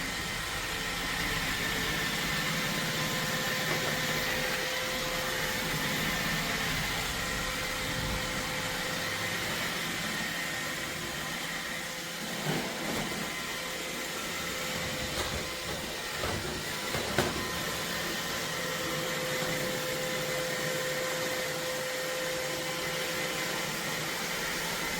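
iRobot Roomba Combo robot vacuum (Y0140) running across a floor with a steady whirr and a faint whine, with a few short knocks near the middle.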